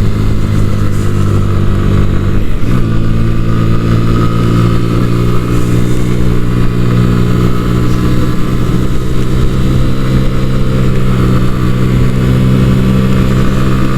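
Sinnis Akuma 125's single-cylinder engine running steadily at riding speed under wind rush; about two and a half seconds in, the engine note steps up abruptly and then holds.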